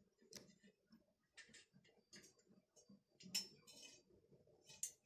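Faint, scattered light clicks and clinks of a metal wire-mesh frying strainer tapping against a steel bowl of fried French beans, several taps, the loudest a little past three seconds and near the end.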